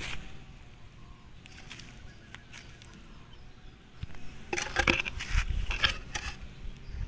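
A hand handling a wooden brick mould made of scrap boards, making a cluster of light knocks and scuffs a little past halfway through, over a faint steady high whine.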